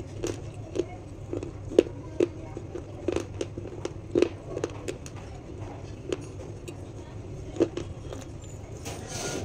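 Close-miked chewing of a crunchy snack: irregular sharp crunches, about one to two a second, over a steady low hum, with a brief hiss near the end.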